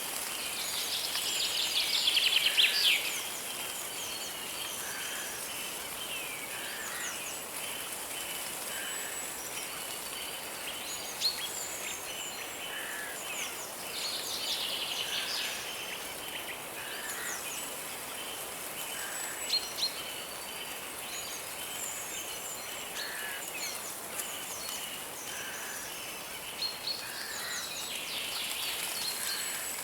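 Forest birds singing over a steady rush of flowing river water: a rapid trilling song phrase of about two seconds comes three times, roughly thirteen seconds apart, among scattered short chirps and calls.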